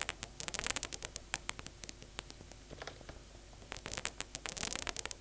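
Synthesized paper-crumpling sound from the Vital software synthesizer: a run of irregular sharp crackles and clicks, coming in uneven clusters.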